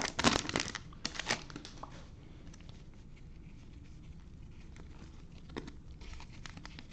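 Foil trading-card pack wrappers crinkling and tearing as packs are ripped open, busiest in the first two seconds, then a few faint rustles.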